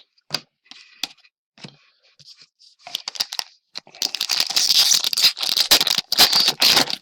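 Hockey card pack wrapper being torn open and crinkled: a few light clicks and rustles of cards being handled, then a loud stretch of tearing and crinkling over the last three seconds, broken once by a short pause.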